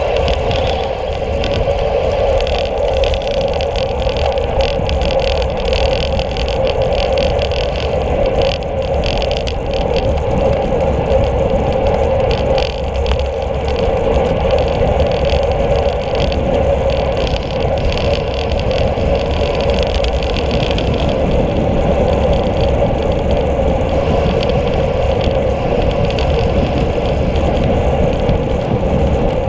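Steady rush of wind and road noise picked up by a camera on a road cyclist riding at speed, with a constant low rumble and no breaks.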